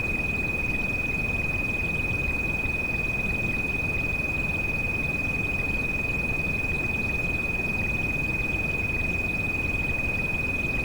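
A single high, steady pure tone, a tinnitus-masking treatment frequency, held unchanging over a constant hiss of rain.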